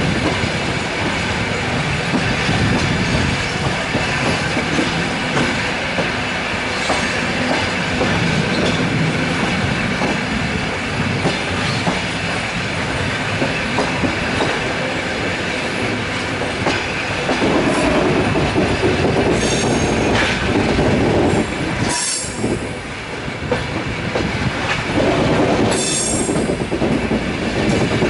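Passenger train wheels running over the rails, heard from aboard a Russian Railways carriage arriving at a station, with the clatter of rail joints. Short high-pitched bursts come about two-thirds of the way in and again near the end.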